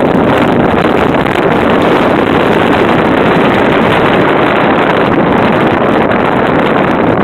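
Steady, loud wind noise buffeting the microphone, mixed with the rushing sound of a boat under way over choppy water.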